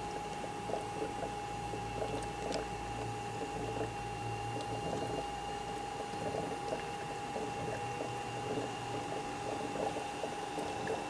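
Brown's gas (HHO) generator running, gas bubbling steadily through water in its cell and bubbler, with a steady high-pitched whine throughout, as its current is turned up to about 33 amps for more gas output.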